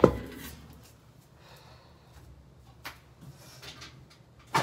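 A sharp knock as a phone is set down on top of a washing machine, then faint rustling with a small click about three seconds in, and another loud knock near the end.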